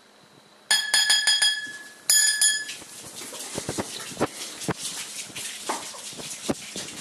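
A metal spoon rapidly tapped against a ceramic food bowl in two quick runs of ringing clinks, calling the puppies to eat. Then the corgi puppies' paws and claws click and tap irregularly on the wooden floor as they run over.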